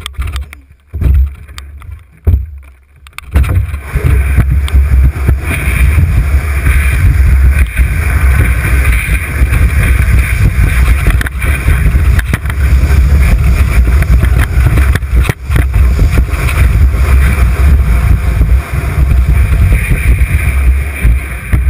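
Canoe hull sliding down a snowy slope, a steady loud scraping rumble carried through the hull to the bow-mounted camera. There are a few knocks in the first three seconds, and the slide starts about three seconds in.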